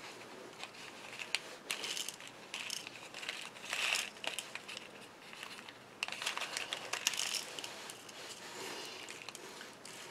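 Irregular crinkling of a small plastic bag of sequins being handled and opened.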